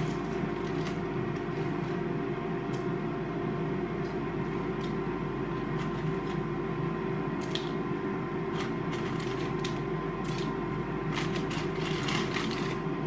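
Frosties flakes shaken from the box into a bowl in small amounts, giving scattered light clicks and rustles, as the portion is topped up to 80 grams. Under it runs a steady hum with several held tones.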